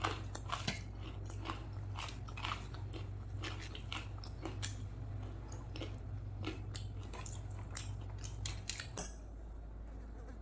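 Close-miked eating: wet chewing and crunching mouth sounds, a string of short clicks and crunches that thins out about nine seconds in, over a steady low hum.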